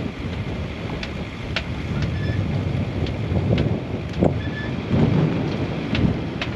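Strong wind buffeting the microphone aboard a sailing yacht at sea, a heavy rumbling rush with scattered sharp clicks and knocks.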